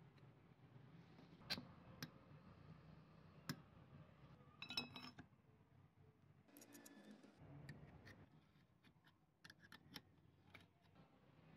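Scattered sharp clicks and light metallic clinks as foot air pump parts are handled and fitted together, with a small rattle in the middle. A cluster of clicks near the end comes as an open-end wrench is set on a nut at the pedal pivot. It is quiet between the clicks.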